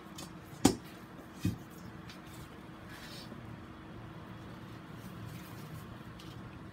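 Hand-handling noise at a plant-mounting board: a sharp knock, then a softer one just under a second later, followed by faint rustling and fiddling sounds over a low steady hum.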